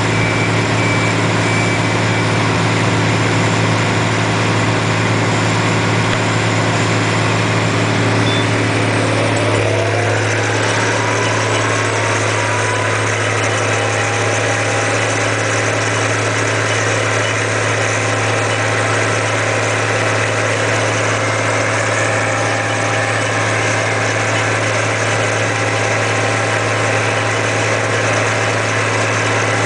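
Hydraulic vibratory hammer and its diesel power pack running, with a steady low hum, while the hammer vibrates a steel pile casing up out of the ground. About ten seconds in the pitch shifts and a rising whine sets in, then the sound holds steady again.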